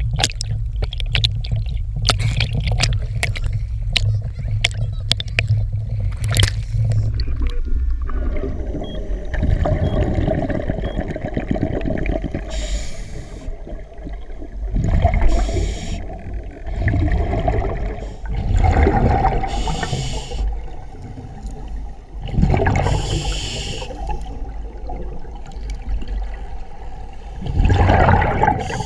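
At first, water slaps and knocks against a camera's underwater housing at the surface. After about eight seconds the camera goes under, and a scuba diver breathes through a regulator: a muffled rumble on each breath, then a rush of exhaled bubbles about every three to five seconds.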